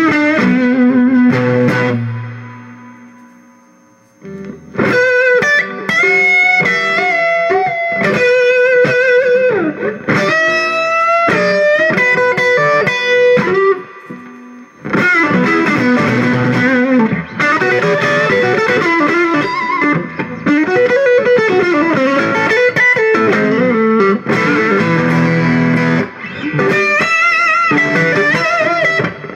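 Electric guitar played through an amplifier with a distorted, fuzz-like tone: single-note lead lines with string bends and vibrato. Near the start a low note rings out and dies away, and the playing picks up again about four seconds in.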